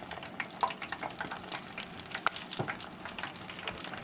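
Battered cheese dogs deep-frying in a pot of hot oil: a steady sizzle with many small crackles and pops, one sharper pop a little past two seconds in.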